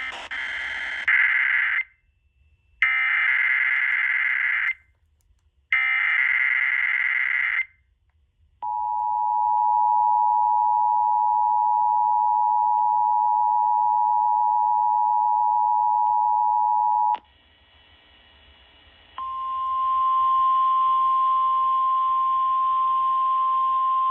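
Emergency Alert System tones broadcast on WRFX 99.7 FM, heard through a portable radio's speaker. Three bursts of SAME header data come first. Then the two-tone EAS attention signal sounds for about eight seconds. After a short gap comes NOAA Weather Radio's single steady warning tone, relayed from the NWR transmitter, opening the alert for the required monthly test.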